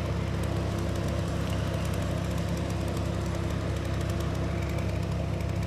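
An engine running steadily at a constant pitch, with no change in speed.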